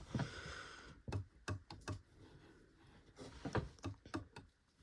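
Light plastic clicks and taps from a plastic toy and test tube being handled, with a soft hiss during the first second.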